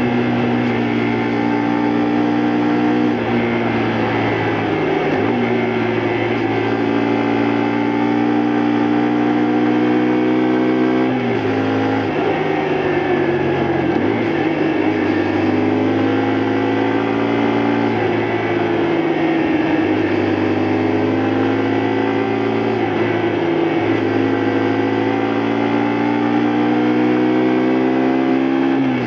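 Honda Varadero 125's small four-stroke V-twin engine pulling under way, its pitch climbing and falling several times and dropping sharply a few times as the rider changes gear and throttle.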